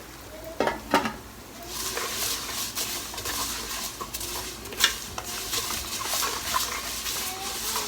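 A metal spoon knocks twice against a cooking pot, then a pan sizzles steadily, with the odd clink of the utensil against the pot as the vermicelli fries in oil and ghee.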